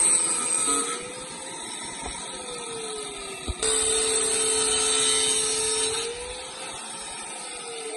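Small electric power tool running with a steady whine, louder twice, its pitch dipping slowly and recovering in the quieter stretches.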